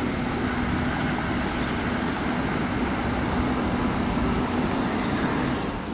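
Steady running noise of jet aircraft on the airport ramp: an even rushing drone with a constant low hum and a faint high whine, unchanging throughout.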